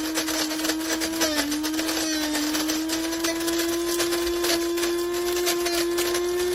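Electric burr coffee grinder running: a steady motor hum that rises slowly in pitch, over a dense crackling.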